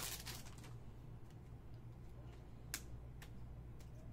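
Foil card-pack wrapper crinkling briefly at the start, then a few faint, sharp clicks as a stack of baseball trading cards is fanned and handled, the sharpest nearly three seconds in.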